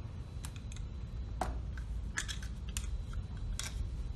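Small paintbrush sweeping loose soil off the outside of a steel compaction mold and its baseplate: irregular light ticks and clicks over a low steady hum.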